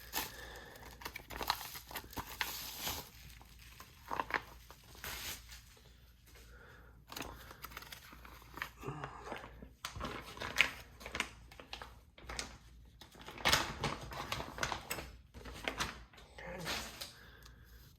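Packaging crinkling and rustling in irregular bursts as a boxed knife is unpacked by hand.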